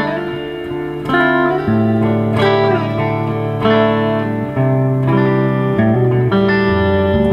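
2013 Gretsch White Falcon G6136T hollow-body electric guitar with Filtertron pickups, amplified, playing a run of chords and picked notes that change about every second, with a bent note near the middle.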